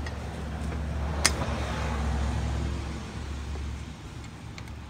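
Brake caliper bleeder screw cracked open with a wrench against a held brake pedal. There is a sharp click about a second in, then a soft hiss as pressurised brake fluid and trapped air are pushed out into the bleed hose, fading after a couple of seconds. A steady low hum runs underneath.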